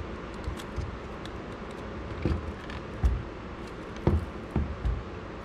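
Plastic gauge units clicking and knocking as they are lined up and pushed onto their pins in a Ford truck instrument cluster housing: a few faint ticks, then sharper taps about two, three and four seconds in, over a steady low hum.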